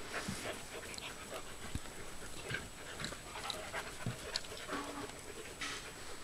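Alaskan malamute puppies play-fighting: irregular scuffles and short clicks from paws and mouths, with a brief small vocal sound from a puppy about three-quarters of the way through.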